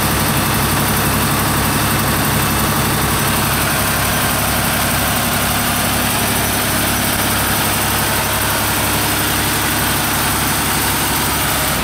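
Heavy diesel truck engine idling steadily, with an even high hiss over the low engine drone.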